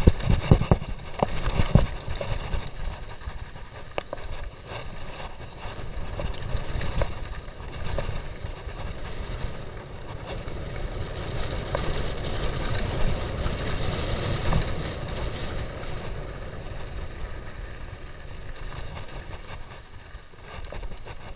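Downhill mountain bike rolling fast down a dirt and gravel trail: tyre noise and the rattle of the bike, with wind on the microphone. There are sharp knocks over rocks in the first couple of seconds.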